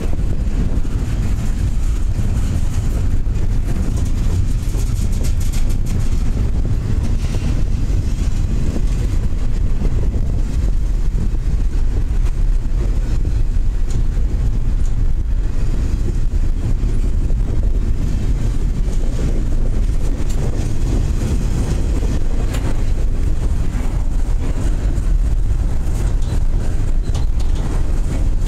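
Double-stack intermodal container train's well cars rolling past: a steady, loud rumble of steel wheels on rail, with scattered clicks.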